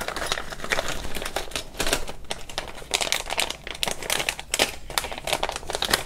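Plastic packaging crinkling and crackling in the hands as a sealed plastic bag is opened and the anti-static bags inside are handled: many sharp, quick crackles.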